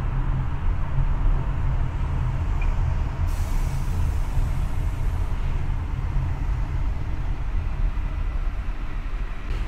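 Steady low rumble of road and engine noise from a car driving, with a hiss that starts about three seconds in and fades over about two seconds.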